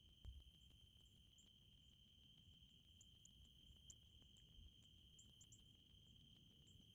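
Near silence outdoors, with a faint steady high-pitched insect trill and a few short, very high chirps over a low background rumble.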